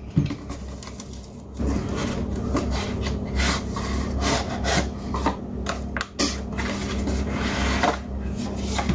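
Cardboard and plastic packaging rubbed and rustled by hand as the ESC's box is opened and its contents handled: a sharp click near the start, then dense, continuous scraping and crackling from about a second and a half in.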